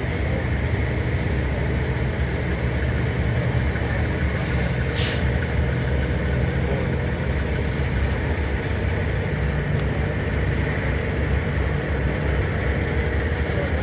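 Heavy diesel semi-truck engines running steadily at low parade speed, with one short air-brake hiss about four to five seconds in.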